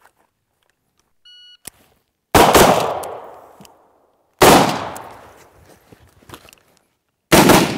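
A short electronic start beep, then three AR-15-type rifle shots about two seconds apart, each ringing off in a long echo. The shots are fired standing, then kneeling, then prone.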